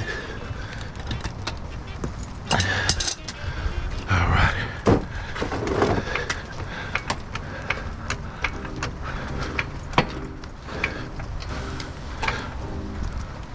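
Irregular metal clanks, clicks and rattles of tools and lug nuts being handled during a roadside tire change, over a steady low rumble of passing traffic, with a few louder scraping bursts.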